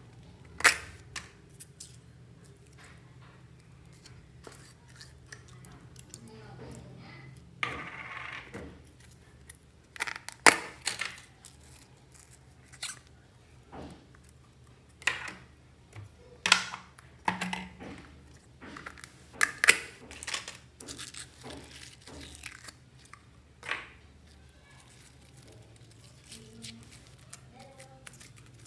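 Slime being squeezed, stretched and folded by hand, giving sharp irregular pops and crackles as air pockets burst, with a longer crackly stretch about eight seconds in.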